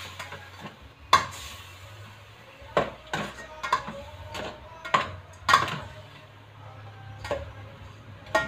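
Metal ladle stirring chicken frying in a metal pot, clanking and scraping against the pot about eight times at uneven intervals.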